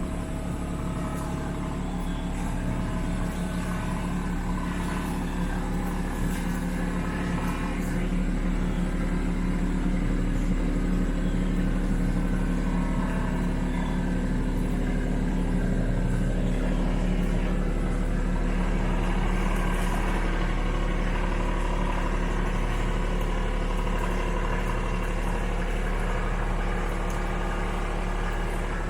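Kubota B2650 tractor's three-cylinder diesel engine running steadily while driving the BH77 backhoe's hydraulics; it gets a little louder about eight seconds in.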